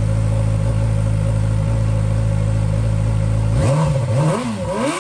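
2012 Yamaha R6's inline-four engine idling steadily, then blipped three times in quick succession from about three and a half seconds in, each rev climbing higher than the last.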